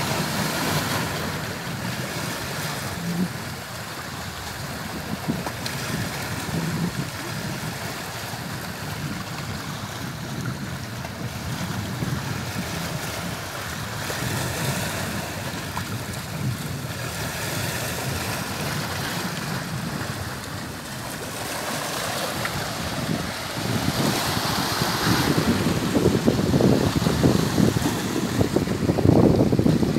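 Sea waves washing onto a shore, swelling and easing every few seconds, with wind on the microphone; the wash grows louder and rougher over the last few seconds.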